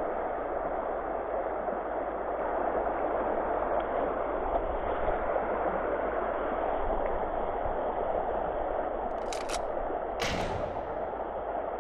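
Shallow river rushing steadily over a rocky riffle. Near the end, two sharp clicks and then a louder snap with a short hiss as a baitcasting rod and reel is cast.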